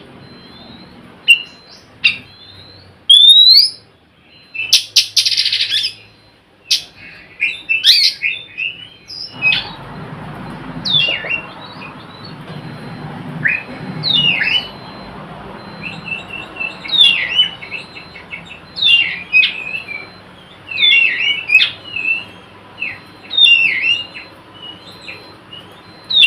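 Oriental magpie-robin (kacer) singing in 'nyerecet' style: quick strings of short chirps and sweeping whistled notes. A harsh, scratchy call comes about five seconds in, and the notes come thicker and faster in the second half.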